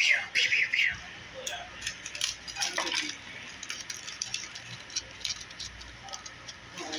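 Aluminum foil crinkling and crackling as it is squeezed and shaped by hand. The loudest crackles come in the first second, with lighter ones after.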